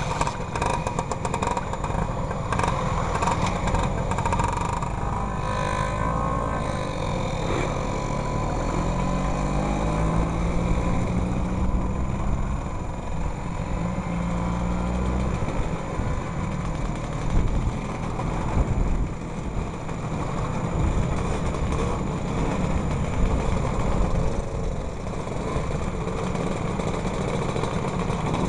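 Vintage two-stroke scooter engine running and pulling away, rising in pitch through the gears from about eight to fifteen seconds in. Wind buffets the helmet microphone with a constant low rumble.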